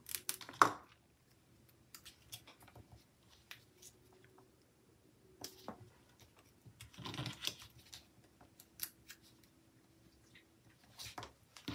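Faint close-up paper-craft handling: light clicks and taps of a precision craft knife lifting stickers off a sticker sheet, with a brief rustle of paper about seven seconds in. Near the end come a few clicks of small scissors being picked up and snipping.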